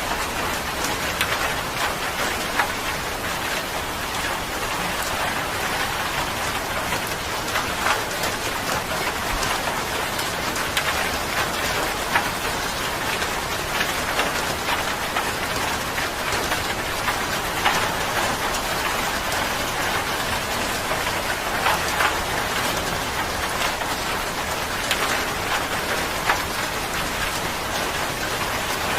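Steady rain falling on a surface, an even hiss with many sharp individual drop hits scattered through it.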